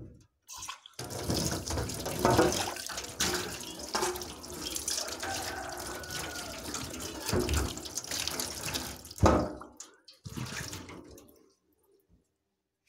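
Tap water running while bilimbi fruit are rinsed by hand, with a few knocks along the way; the water stops near the end.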